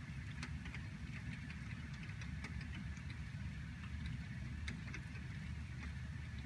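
Heavy rain falling steadily, with a low rumble underneath and scattered ticks of raindrops striking the window glass.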